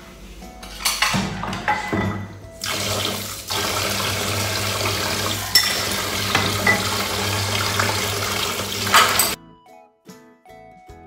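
A few clinks of ceramic dishes in a stainless steel sink, then tap water running steadily into the sink while a bowl is rinsed under it, stopping abruptly near the end.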